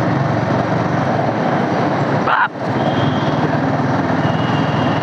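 Wind rushing over a motorcycle rider's microphone with the bike's engine running underneath at low city speed. The sound dips briefly about halfway through, with a short sliding tone.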